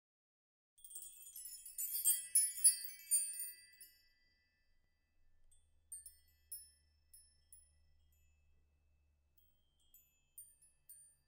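Background music opening with high, tinkling chime notes: a dense shimmering flurry about a second in that fades out, then a few scattered soft pings.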